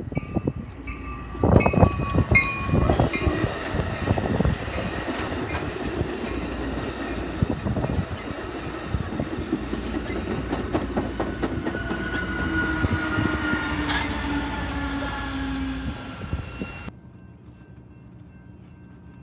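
Amtrak Pacific Surfliner passenger train of bilevel cars passing close by: a steady rumble with frequent sharp clicks of steel wheels over rail joints and a few tones gliding slowly down. At about 17 seconds it cuts off abruptly to a faint steady background.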